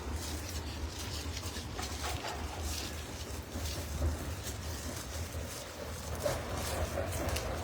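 Steady low hum of industrial machinery at a data center site, with faint scattered ticks over it.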